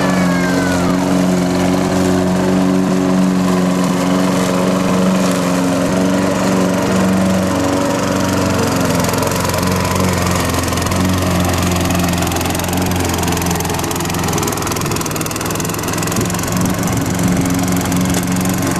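Small gasoline engine of a walk-behind rotary lawn mower running steadily while it is pushed across grass, a little quieter for a few seconds past the middle.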